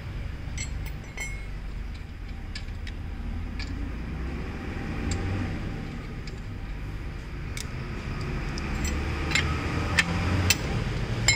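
Scattered light metallic clicks and clinks from wheel nuts being spun off a car's steel wheel studs by hand and the wheel brace being set on a nut. The clicks grow louder and closer together in the last few seconds, over a steady low rumble.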